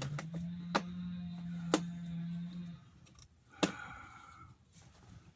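Socket ratchet wrench on a nut giving a few sharp metallic clicks, about a second apart, while being worked in the wrong direction. A low steady hum stops about three seconds in.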